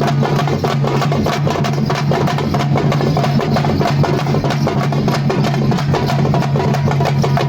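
Music with fast, dense drumming.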